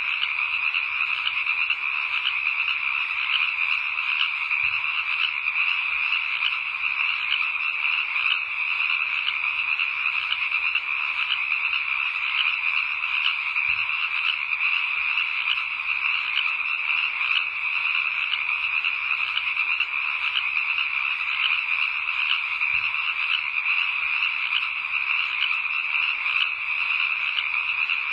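Dense, steady chorus of many frogs calling at once, a night-time ambience.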